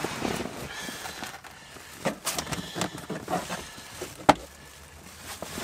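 Handling noises from work on a car's interior wiring and trim: rustling with scattered clicks and knocks, and one sharp click about four seconds in.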